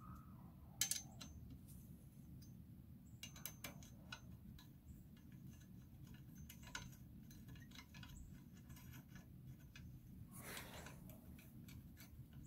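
Faint, scattered metallic clicks and ticks from a hex-key tool at the bolts of an ATV handlebar clamp, the loudest just under a second in, over a low steady hum. A brief rustle comes about ten seconds in.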